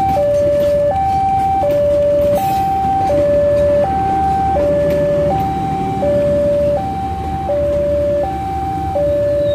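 Railway level-crossing warning alarm sounding a steady two-tone signal, a higher and a lower tone alternating about every 0.7 s, warning that a train is crossing. Under it, the coaches of a passing passenger train roll by.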